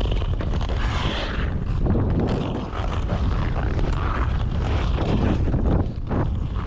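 Steady low rumbling noise that rises and falls a little, typical of wind buffeting the microphone.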